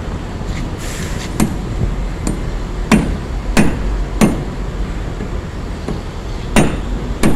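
Hand hammer striking a steel Kenter shackle set in heavy anchor chain: about six sharp metallic blows at uneven spacing, each with a brief ring, four close together in the middle and two more near the end.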